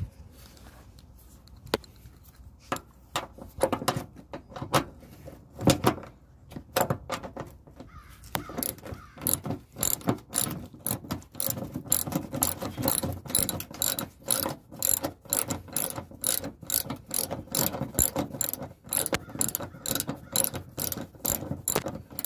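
Small ratchet wrench with a stubby 10 mm socket clicking as it backs out a bumper bolt in the wheel well. A few scattered clicks at first, then a fast, steady run of clicks from about eight seconds in.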